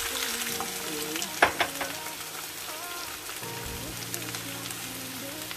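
Mixed vegetables sizzling in a hot frying pan as a little water is poured over them to cook them. There is one sharp knock about a second and a half in.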